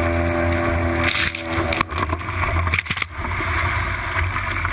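A steady motor hum over noise, with its steady tones dropping out about a second and a half in, then several sharp knocks between two and three seconds in.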